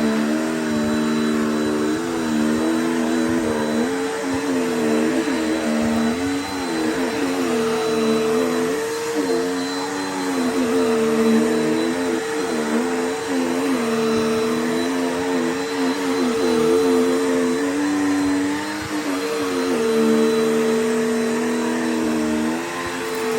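Dirt Devil Power Max Pet vacuum cleaner running without a break, its motor hum wavering up and down in pitch every second or so.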